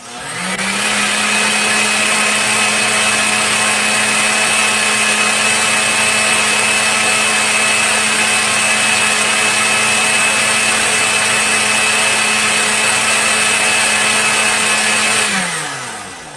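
Electric kitchen blender switched on: the motor spins up within about half a second to a steady high whine and runs evenly, then is switched off near the end and winds down.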